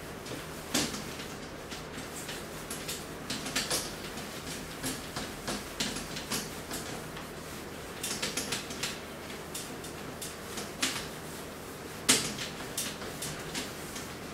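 Whiteboard duster being wiped across a whiteboard, a run of short, irregular rubbing strokes, with a louder stroke about a second in and another near the end.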